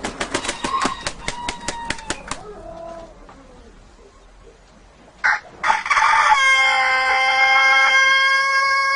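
Rooster crowing with a long, steady, siren-like call that starts with a loud burst about five seconds in and is held for several seconds. Before it comes a rapid run of sharp clicks.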